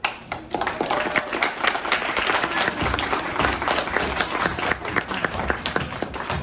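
An audience applauding, the clapping starting all at once.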